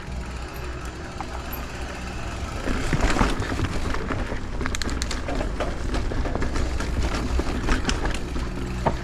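Mountain bike rolling down a rocky downhill trail: tyres grinding over dirt and rock with the bike rattling and clicking, louder from about three seconds in. A steady low hum runs underneath.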